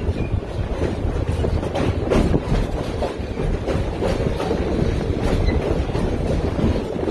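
Railroad passenger car rolling along the track: a steady low rumble with a few sharp wheel clicks over rail joints.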